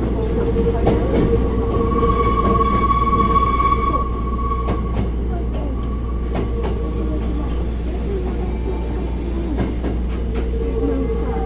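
Hankyu 1000 series electric train running, heard from inside the car: the Toshiba IGBT-VVVF inverter and traction motors give steady tones over a low rumble, the higher tone strongest a few seconds in, with scattered clicks of the wheels over rail joints.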